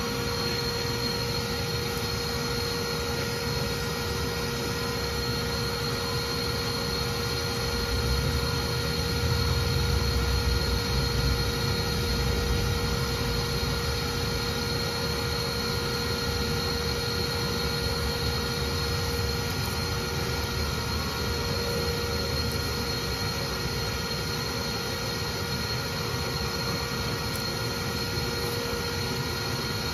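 Bee vacuum's motor running steadily with a high whine while its hose sucks up bees. A louder low rumble swells from about eight to thirteen seconds in.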